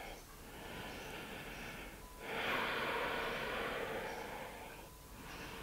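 A person breathing slowly and deeply through the nose while holding a yoga pose: one breath of about two seconds, then a louder, longer one.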